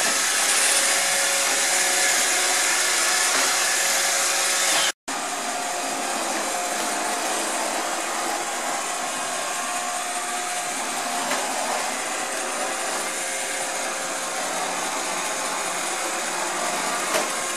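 iRobot Roomba 690 robot vacuum running steadily on carpet, a constant whirring hum of its suction fan and brushes. It cuts out for an instant about five seconds in, then carries on slightly quieter.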